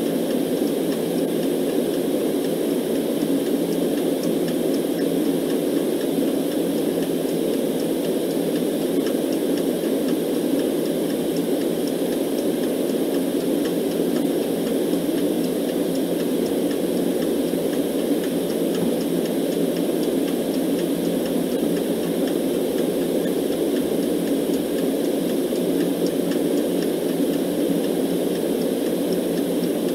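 Steady white noise, an even hiss with most of its weight in the low-middle range, with a clock's ticking mixed in faintly underneath.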